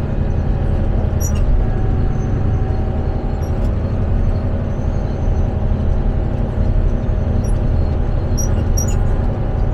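Motor grader's diesel engine running steadily under load, a loud, even low drone with a steady hum.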